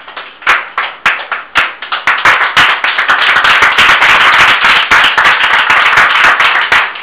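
A small group of people clapping. A few separate loud claps at first build, about two seconds in, into steady dense applause.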